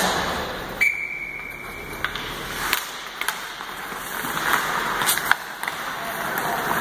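Ice hockey play: skate blades scraping the ice, with several sharp knocks of sticks and puck.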